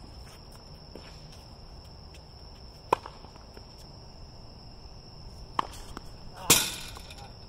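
Tennis ball struck by rackets and bouncing on a hard court during a rally: three sharp pops, one about three seconds in and two near the end, the last the loudest. Crickets chirr steadily in the background.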